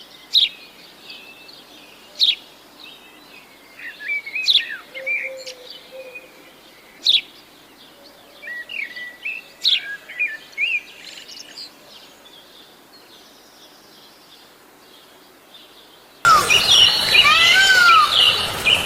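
Wild birds chirping: sharp, quick chirps every couple of seconds over softer twittering, thinning out to a quieter stretch. About three seconds from the end, a sudden cut to a much louder jumble of many overlapping calls.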